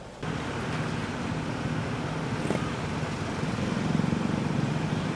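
Vehicle engine running with road and traffic noise: a steady low hum under a wash of noise. It cuts in abruptly just after the start and grows slightly louder later on.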